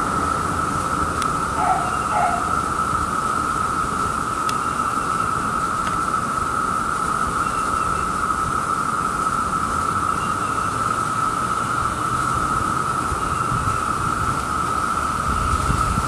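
Dense chorus of Brood II periodical cicadas (Magicicada), a loud, steady drone holding one pitch. A couple of faint short bird chirps come about two seconds in.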